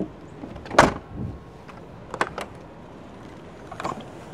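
Exterior storage-bay door and latch on a Prevost motorcoach being worked by hand: one loud clunk about a second in, then several lighter clicks.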